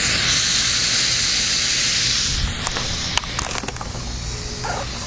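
Smoke bomb hissing loudly as it pours out smoke, the hiss dropping away about two and a half seconds in. A few sharp clicks follow.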